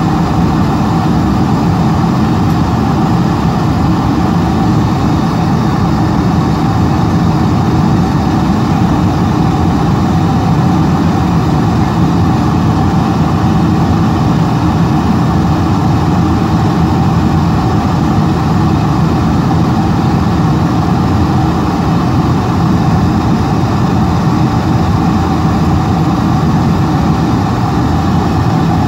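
Boeing 747-400ER cabin noise at a window seat over the wing: a steady, loud rush of airflow and jet engines while the airliner descends on approach with its flaps extended.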